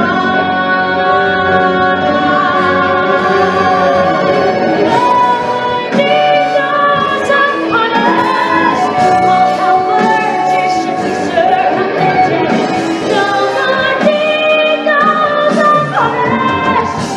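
A woman belting a musical-theatre song with long held notes over a pit orchestra, heard in the reverberant acoustics of a theatre.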